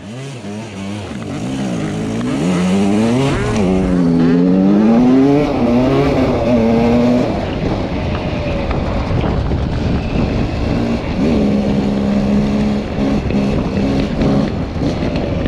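Off-road dirt bike engine revving, its pitch rising and falling again and again, then holding steadier with short breaks in the second half.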